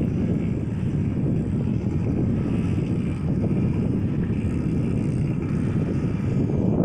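Wind buffeting the phone's microphone, a steady rough low rumble.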